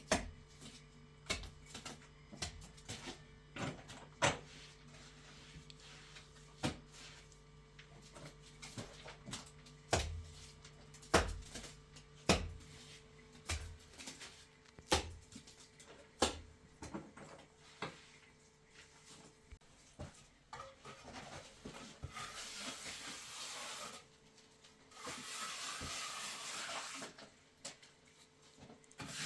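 A string of sharp, irregular knocks and clicks, roughly one a second, like hand work on wood and other hard materials. Near the end they give way to two spells of steady hissing noise, each about two seconds long.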